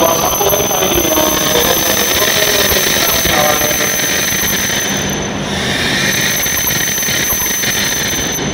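E7 series Shinkansen train rolling slowly along the platform as it slows to a stop, with a high, steady squeal over the rolling noise and a lower tone that falls in pitch over the first few seconds.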